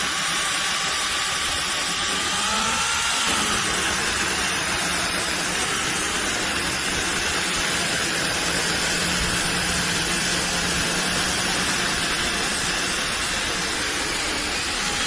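Battery-powered brushless mini chainsaw running steadily as it cuts through an almost frozen log, its motor whine dipping slightly in pitch under load about two to three seconds in.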